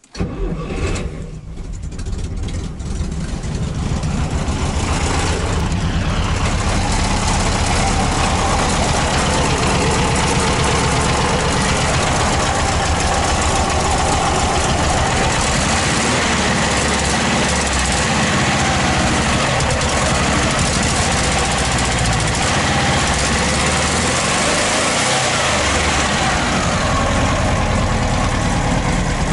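ZAZ-968 Zaporozhets' air-cooled V4 engine starts on old petrol. It picks up unevenly over the first few seconds, then settles into a steady run.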